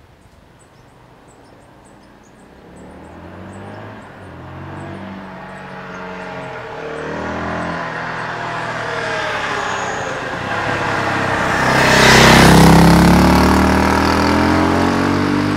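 KTM LC4 640 single-cylinder four-stroke motorcycle on its stock exhaust, approaching from far off and accelerating through the gears, the engine note rising and dropping at each shift as it grows louder. It passes close by about twelve seconds in, its loudest moment, and the pitch falls as it rides away.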